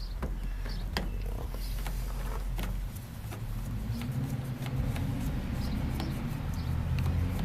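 Light clicks and taps of a plastic power strip being handled and taken apart, about one to two a second, over a low steady mechanical hum that grows a little louder about four seconds in.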